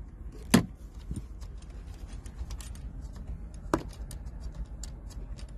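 Small metallic ticks and clicks of a CB radio microphone plug's threaded retaining nut being turned by hand on the radio's front-panel jack, with two sharper clicks, one about half a second in and one near four seconds in, over a low steady hum.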